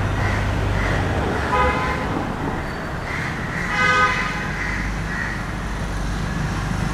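Road traffic rumbling steadily, with two short vehicle horn toots, about a second and a half in and again about four seconds in, the second louder.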